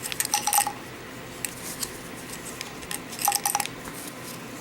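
Typhoon stormproof matches being dropped and handled into their match case: light clicks and clinks, a cluster at the start and another about three seconds in, with a few single ticks between.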